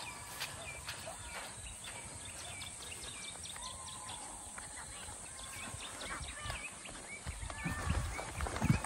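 Hunting dogs yelping and baying in the distance, in many short, broken calls. A few low thuds sound near the end.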